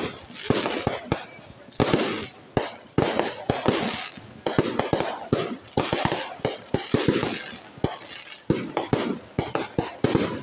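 Aerial fireworks going off in quick succession: sharp bangs of shells launching and bursting, several a second at uneven intervals, with hissing crackle between them.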